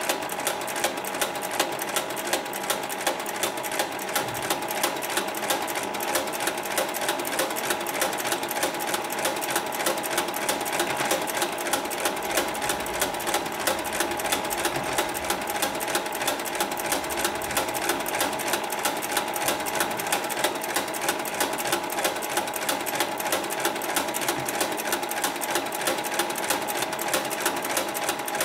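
Hightex 9204ZZ heavy-duty straight-stitch and zigzag sewing machine running steadily, its needle stitching in a rapid, even rhythm as it sews rope onto netting.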